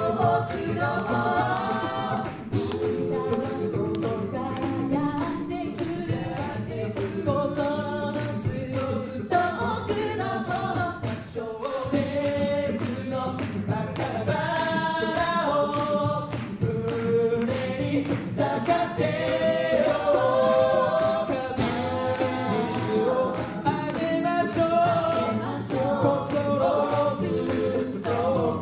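A six-member a cappella group singing a song in close harmony through microphones, with vocal percussion keeping a steady beat underneath.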